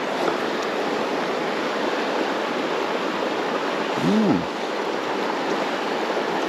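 Steady rush of flowing creek water. About four seconds in comes one short tone that rises and then falls.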